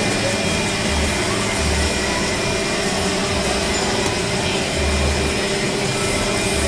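Steady background din of a busy night-market street-food stall: an even hiss with a constant mechanical hum and occasional dull low thuds.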